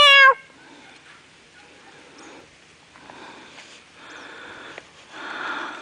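A single short, loud, high animal cry right at the start, from the farm cat or one of the Great Pyrenees puppies facing her, followed by faint scuffling and a softer rushing noise about five seconds in.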